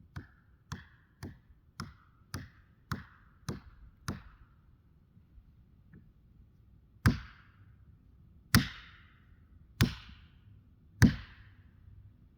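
Sharp tool blows striking wood, most likely while felling a tree: eight quicker, lighter strikes about twice a second, then after a pause four heavier strikes spaced more widely, each with a brief ring.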